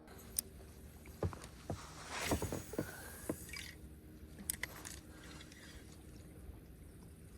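Knocks and scrapes of fishing gear being handled in a small boat, with a short rushing noise about two seconds in.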